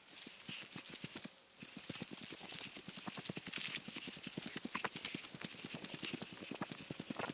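Footsteps crunching and swishing through dry tall grass and brush at a brisk walk, in a quick steady rhythm with a short break about a second and a half in.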